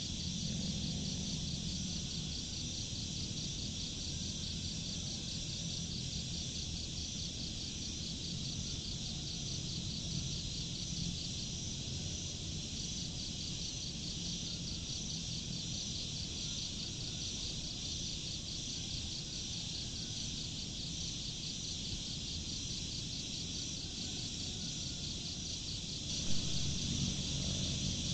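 Crickets chirring steadily in a continuous fast trill, over a low rumble of background noise. A brief knock sounds near the end.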